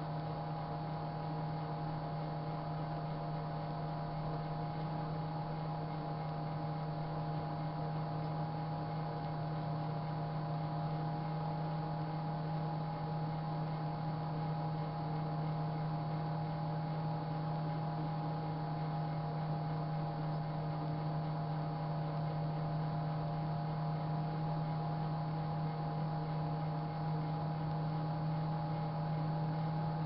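Sharp Carousel microwave oven running, a steady low hum.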